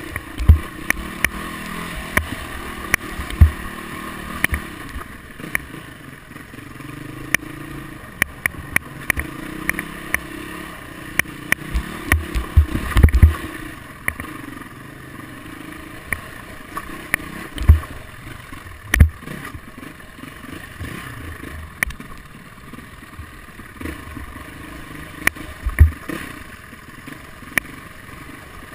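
Dirt bike engine running and rising and falling in pitch as it rides a rough dirt trail. Frequent sharp knocks and clatter over the bumps are the loudest sounds.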